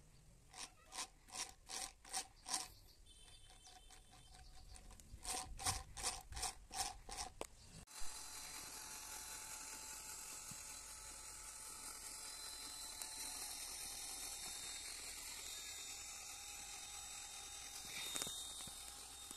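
Cordless drill turning a homemade PVC chain-drive tractor gearbox. First come two runs of short, evenly spaced bursts, about three a second. Then, from about eight seconds in, the drill runs steadily, spinning the chains and wheels with a thin high whine.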